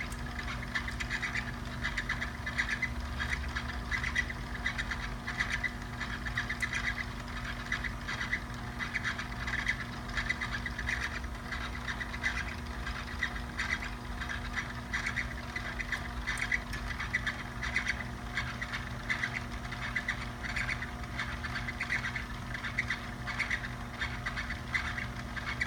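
Small electric motor of a rod-building turner running steadily as it spins a fishing rod during epoxy coating of a guide wrap. There is a low hum and a high squeak that repeats about once a second.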